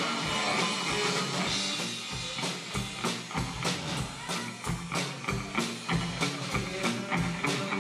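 Live rock band playing: electric guitar through an amp with a drum kit beating out a steady rhythm. From about two seconds in the drums stand out, hitting about three times a second.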